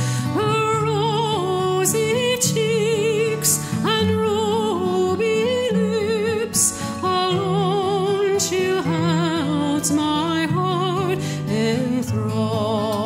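Background music: a slow melody with vibrato over sustained low notes.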